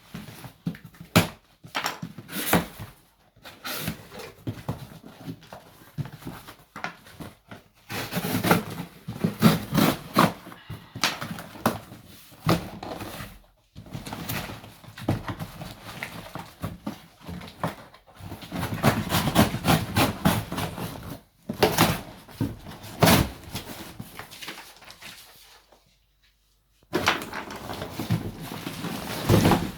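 A cardboard shipping box is handled and opened by hand: irregular scraping, tearing and rustling with scattered knocks and clicks. The sound drops out for about a second near the end.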